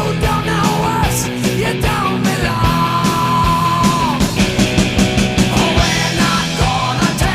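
Punk-style rock song with drums, guitar and a shouted, sung vocal; the singer holds one long note in the middle.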